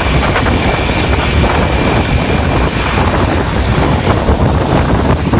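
Mercedes-Benz-chassis coach bus driving at speed, its engine and exhaust running with a steady low rumble and whooshing, heard from close behind. Heavy wind buffets the microphone throughout.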